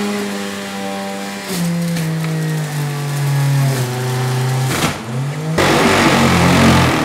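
Centrifugal juicer's high-speed motor running loud with a steady hum, its pitch sinking in steps as carrots are pushed down the chute onto the spinning blade and slow it. About two-thirds of the way in, a harsh loud grinding rush takes over as produce is shredded.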